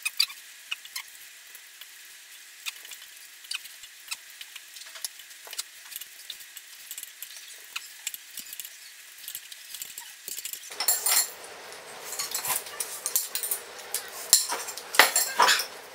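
Two people eating noodles fast: metal forks clink and scrape on ceramic plates, with slurping. It gets louder and busier about eleven seconds in.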